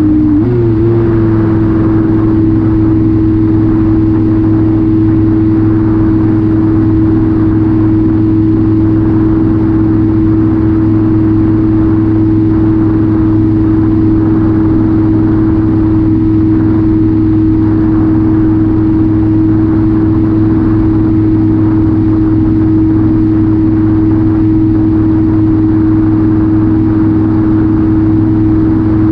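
Ranger2400 RC plane's battery-powered electric motor and propeller in cruising flight, heard from the plane's onboard camera: a loud, steady drone whose pitch wavers briefly about half a second in and then holds steady.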